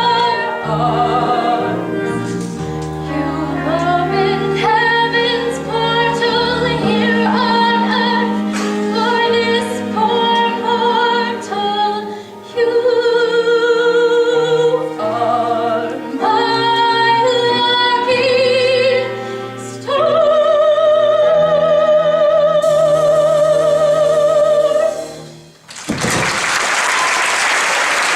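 A singer performs a musical-theatre song with accompaniment, ending on a long held note with vibrato. The song cuts off and loud audience applause breaks out near the end.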